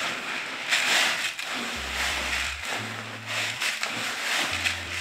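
Hands stirring dry old-fashioned oats and sweet feed pellets in a plastic bucket: an uneven, surging rustling hiss of grain and pellets shifting. Background music with a low bass line runs under it.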